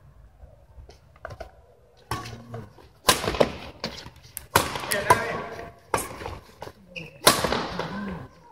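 Badminton rackets striking a shuttlecock in a rally: four sharp hits, about a second and a half apart, each ringing on in the echo of a large sports hall.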